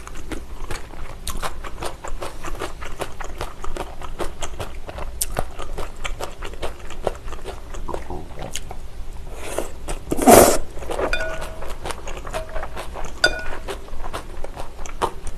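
Close-up wet chewing and lip-smacking of cold agar-jelly noodles in chilled broth, with one loud slurp just past ten seconds in.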